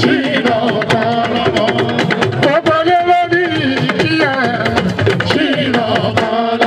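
Live fuji music: a singer's voice over hand drums and percussion.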